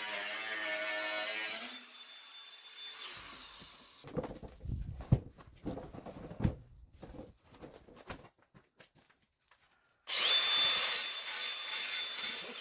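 Electric power tool running, fading out, then a series of irregular knocks, then the power tool running again loudly with a thin high whine near the end.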